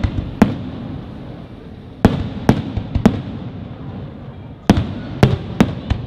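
Firework shells bursting overhead in a display: about eight sharp bangs, one near the start, three in the middle and four in quick succession near the end, over a steady low rumble.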